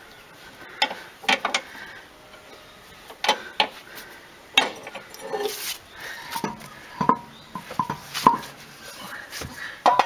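Irregular metal clinks and knocks, about a dozen, from a car jack and its lever being worked to lower the car slowly.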